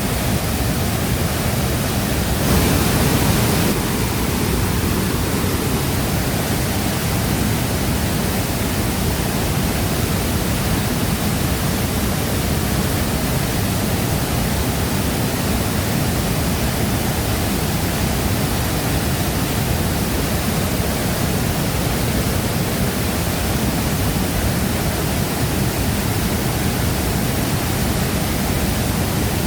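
Waterfall pouring steadily: a dense, even rush of falling water, with a brief louder surge about three seconds in.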